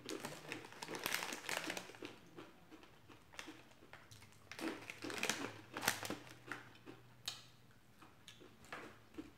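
Mini Takis rolled tortilla chips being chewed, in irregular crisp crackles, mixed with the rustle of their snack bag being handled.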